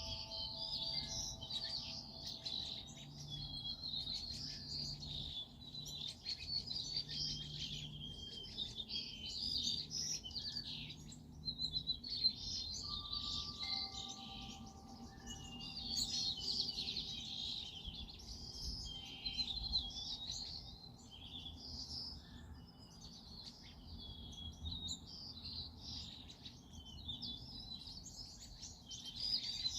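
Many small songbirds chirping and twittering at once in a dense, unbroken chorus. Faint held chime-like tones sound under it at the start and again about halfway through.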